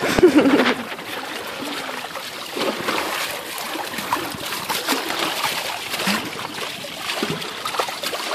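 Water sloshing and splashing against the hulls of a small sailing catamaran under way, an uneven steady wash with a short louder burst right at the start.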